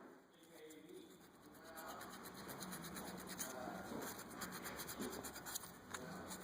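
Sandpaper scrubbing the steel brake caliper bracket where the pads sit, cleaning the pad abutments: quick scratchy rubbing strokes that grow busier about two seconds in.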